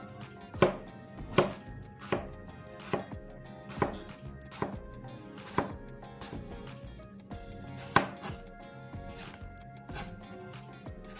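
A Zwilling Twin Gourmet kitchen knife slicing thinly through an apple on a cutting board, each cut ending in a sharp tap of the blade on the board, about one every three-quarters of a second with a pause midway.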